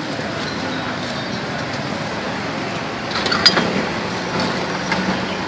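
Steady background street noise. A little past halfway there are a few sharp clinks, and another at the end: a metal ladle knocking against ceramic bowls and a steel broth pot as broth is ladled out.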